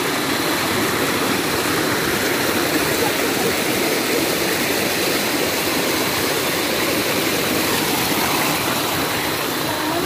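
Steady rush of a small waterfall spilling into a shallow forest stream, with the water running over rocks.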